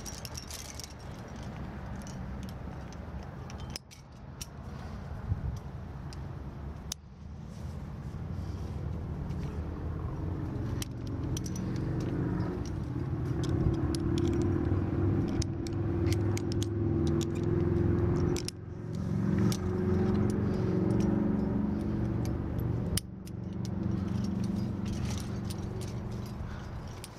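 Metal climbing gear clinking and rattling: carabiners on the harness rack and the steel chains of the top anchor knocking together in scattered clicks. Under it runs a low engine drone, loudest through the middle.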